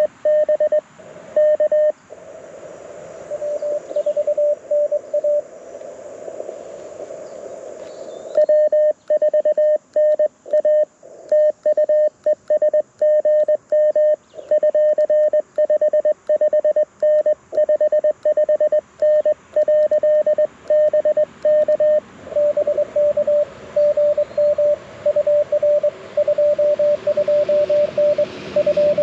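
Morse code (CW) tones from an LNR Precision Mountain Topper MTR4B transceiver through a small speaker, a single steady tone keyed on and off. Early on and again from about two-thirds of the way in, the keying is softer over a hiss, a received station heard over band noise. In between, for about fourteen seconds, the keying is louder with no hiss between characters: the rig's own sidetone as the operator sends.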